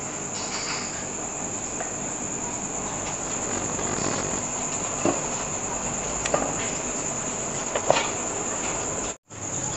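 Night insects, crickets by the sound, trilling in a steady, high continuous chorus, with a few faint knocks and a brief cut-out near the end.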